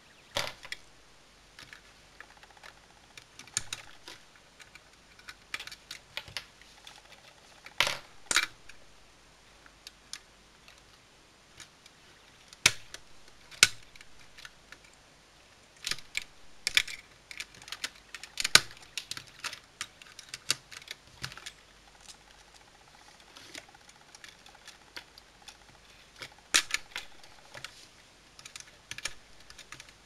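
Irregular clicks and light clatter of plastic snap-together circuit pieces and alligator-clip leads being handled, snapped and clipped onto a circuit board, a few louder snaps among many small taps.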